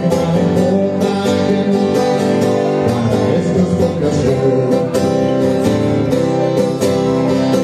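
Acoustic guitar strummed in a steady rhythm, an instrumental passage between sung lines of a country-style song.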